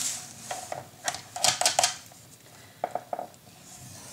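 Black cardstock being slid and pressed into place on a plastic scoring board, with light clicks, taps and paper rustles in short clusters, as a plastic bone folder is set into the score groove to crease a fold line.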